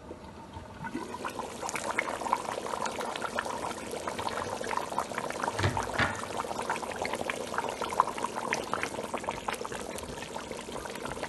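A pot of thick tomato-based potato porridge boiling, a dense, steady run of small bubbling pops.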